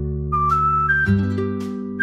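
Background music: a whistled melody stepping upward over acoustic guitar chords, with a chord change about a second in.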